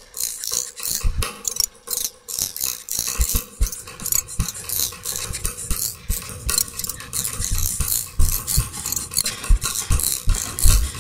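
Avant-garde experimental recording made of irregular clattering and scraping noises: dense short clicks and hissy bursts, with scattered low thuds and no steady beat or tune.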